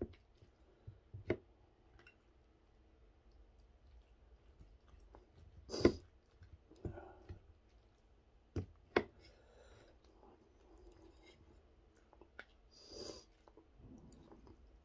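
A metal spoon and chopsticks clicking and scraping against dishes while a person eats, with quiet chewing between. There are a few sharp clicks, and the loudest comes about six seconds in.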